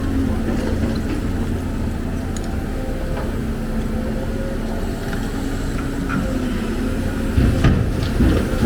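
Heavy diesel machinery engine running steadily with a low hum. Scattered light clicks, then louder low knocks and rumbling near the end.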